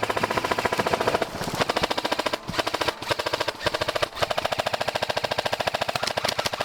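Airsoft guns firing on full auto: long, fast strings of sharp shots, broken by a few short pauses.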